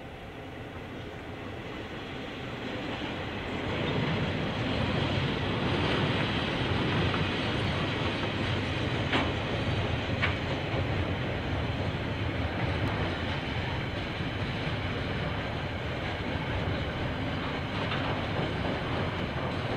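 KiwiRail diesel-hauled freight train approaching and passing: a rumble that builds over the first few seconds, then steady wheel-on-rail noise with some clickety-clack. Two sharp clicks come about nine and ten seconds in.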